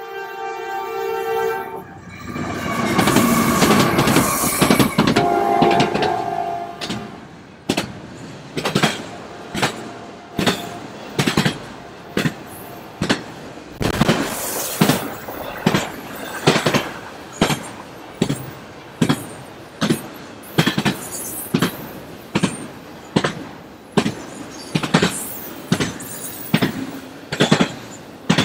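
Norfolk Southern freight train passing close by: the diesel locomotive sounds its horn at the start and briefly again a few seconds later, the lead locomotives go by loudly, then the freight cars' wheels click over the rail joints in a steady rhythm about once a second.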